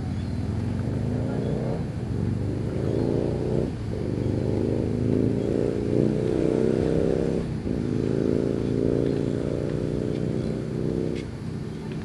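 A motor vehicle's engine accelerating, its pitch climbing, falling back twice as it shifts up a gear and climbing again, then fading away near the end.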